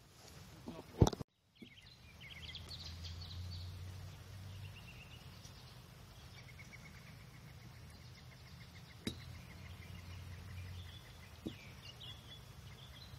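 A golf driver striking a teed ball about a second in: one sharp crack, the loudest sound. Then birds chirping repeatedly, with two faint clicks later on.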